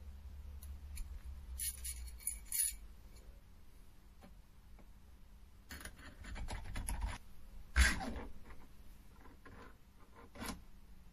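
Steel feed screw, thrust bearing and bracket of a mini lathe's cross slide being handled and fitted by hand: a few light metal clinks, then a scraping rustle, then one sharp metal knock, the loudest sound, a little after the middle, and a small click near the end.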